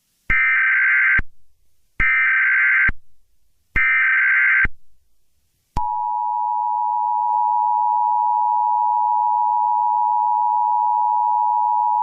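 Emergency Alert System header: three short bursts of SAME data warble, each about a second long, then the two-tone EAS attention signal starting about six seconds in and held steady. Together they announce an incoming emergency alert message.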